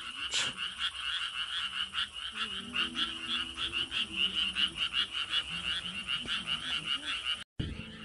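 A dense chorus of frogs croaking: a fast, high-pitched pulsing trill that goes on without let-up. The sound drops out for a moment near the end.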